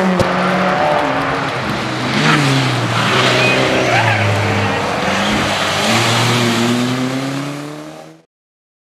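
Rally car engine revving hard as the car drives past, pitch climbing and dropping with the throttle and gear changes. The sound fades out near the end and stops.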